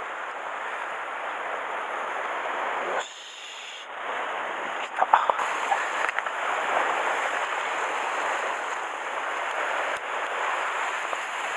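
Steady wash of sea waves on shore rocks, dropping away for about a second three seconds in, with a few sharp clicks and knocks around five seconds in.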